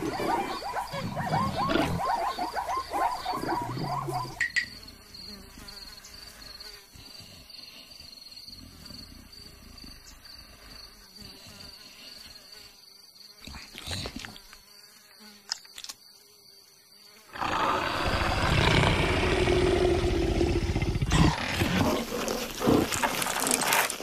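Animated savanna soundtrack. After a few seconds of busy sound effects, insects buzz in a steady high drone over quiet ambience. For the last six seconds a loud, rough, low rumble takes over.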